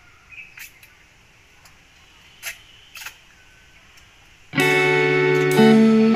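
A few faint mouth clicks from someone eating by hand and chewing. About four and a half seconds in, loud music starts suddenly, with steady held notes.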